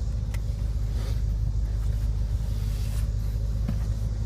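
Low, steady rumble of the BMW M6 Gran Coupe's engine idling, with a faint click about a third of a second in and another near the end.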